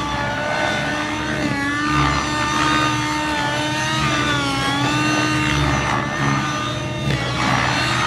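Nitro-powered Synergy N5C RC helicopter flying 3D aerobatics: its glow engine and rotor blades hold a loud whine whose pitch rises and falls again and again with the manoeuvres.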